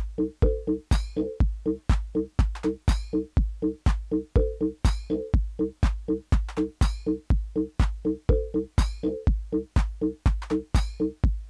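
Live electronic techno from hardware drum machines and analog synthesizers: a steady four-on-the-floor kick about twice a second under a repeating bass-synth riff, with a sweeping high sound about once every two seconds.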